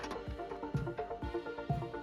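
Background music with a steady electronic beat, about two kick-drum strokes a second under held synth notes.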